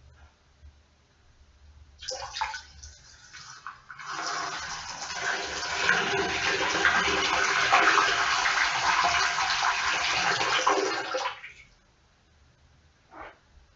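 Toilet flushing: a loud rush of water lasting about seven seconds that stops abruptly, after a few short knocks and rattles about two seconds in.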